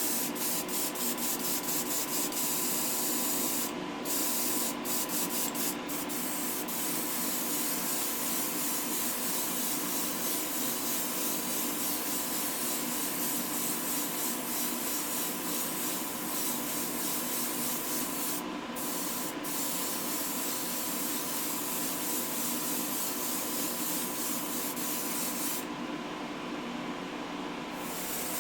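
Airbrush spraying candy paint: a steady hiss of air over a constant hum. The hiss cuts off briefly a few times and for about two seconds near the end while the hum carries on.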